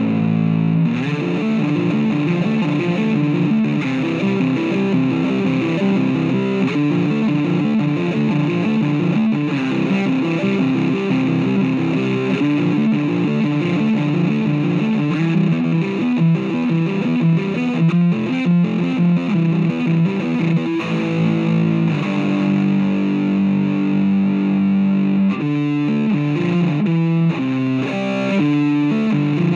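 Four-string electric bass guitar played fingerstyle, a fast continuous run of notes. In the last few seconds the playing turns choppier, with short separated notes.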